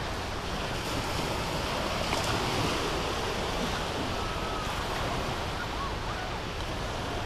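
Small waves breaking and washing up a sandy beach in a steady hiss of surf, with wind buffeting the microphone.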